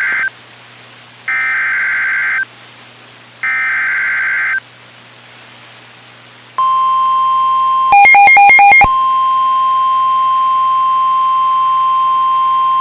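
NOAA Weather Radio EAS alert: three one-second bursts of harsh digital SAME header data, about a second apart, which encode a new severe thunderstorm warning. After a short gap the steady 1050 Hz warning alarm tone starts, broken about eight seconds in by a one-second burst of loud, stepping electronic tones.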